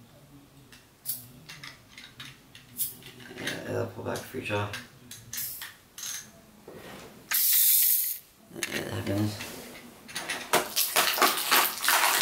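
Small hard-plastic toy pieces of a My Little Pony chariot set clicking and clattering as they are handled, with plastic packaging rustling. A loud rustle lasts about a second a little past the middle, and dense rustling and clicking fills the last couple of seconds.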